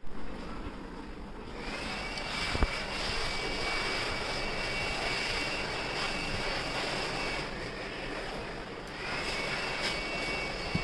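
A small high-speed electric motor running with a steady high whine over a hiss, spinning up about two seconds in and again near the end. A single sharp click sounds about three seconds in.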